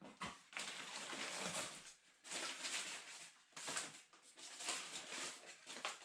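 Packaging rustling in several bursts of about a second each as parts are handled and taken out of a parcel.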